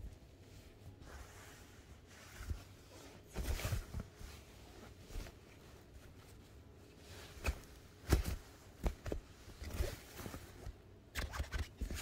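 Fabric cat play tunnel rustling in irregular bursts, with soft bumps, as it is shifted and handled.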